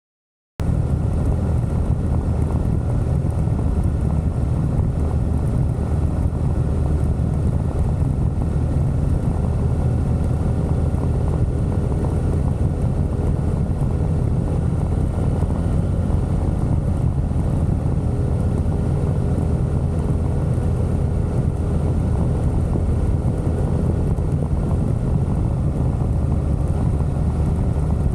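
Motorcycle engine running steadily under way, mixed with heavy wind rush on the camera's microphone; the sound cuts in suddenly about half a second in.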